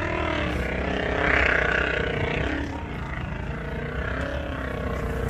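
Off-road race car engine running, with a louder rush of noise about a second in.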